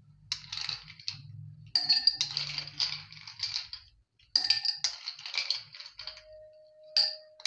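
Ice cubes clinking and rattling against a metal spoon and a ceramic bowl as they are spooned into drinking glasses, in several short bursts.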